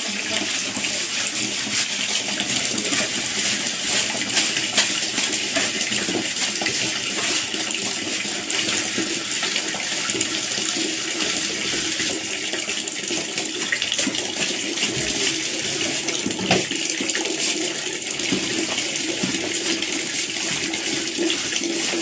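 Water pouring steadily from a wall tap into a plastic bucket, with a few light knocks.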